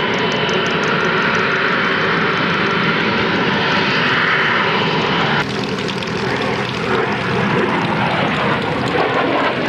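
Loud jet noise from an RAF Harrier GR7's Rolls-Royce Pegasus vectored-thrust turbofan during its display. The noise is steady for the first half, then changes abruptly about halfway through and carries on less sharp.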